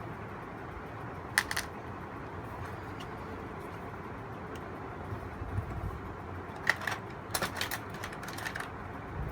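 Small sharp clicks and taps of a screwdriver and metal parts being handled while a graphics card is taken apart: one click about a second in, then a quick cluster of several near the end, over a steady background hiss.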